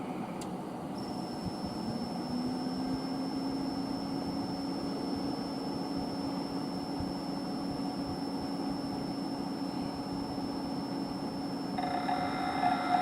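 VP-1000's fan and motor making an abnormal noise before the fan spins up: a click, then a thin high whine and a low hum that rises and holds steady. About 12 seconds in, a louder buzzing sound with several tones joins.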